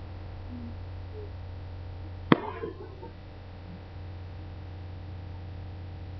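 A single firework shell bursts with one sharp bang a little over two seconds in, trailing off in a short echo, over a steady low hum.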